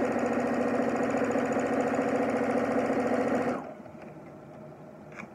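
Electric sewing machine stitching a seam steadily at speed, then stopping abruptly about three and a half seconds in; a light click follows near the end.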